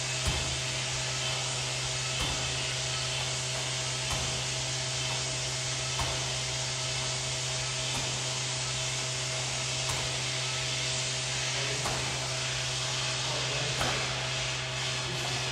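Medicine ball striking the wall target and being caught during wall-ball reps, a soft thud about every two seconds, over a steady whirring hum.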